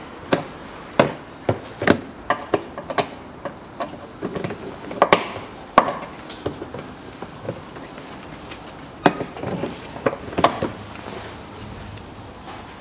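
Irregular sharp clicks and knocks of a hand tool and fasteners against the plastic wheel-arch liner as its screws and clips are taken out, in bursts with short pauses between.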